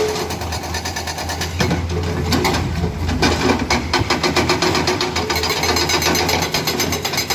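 Hydraulic breaker on a Komatsu excavator hammering in a fast, even rapid-fire rhythm over the excavator's steady diesel engine. About one and a half seconds in, the hammering turns irregular for a couple of seconds before settling back into its even rhythm.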